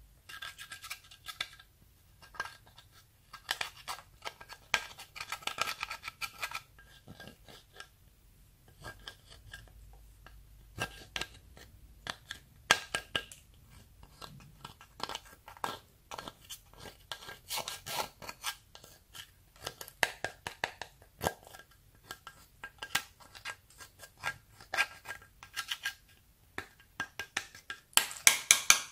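Pressed powder eyeshadow being scraped and crumbled out of the pans of a plastic palette with a small spatula: dry scratching strokes coming in short, irregular bursts, with sharp little clicks among them.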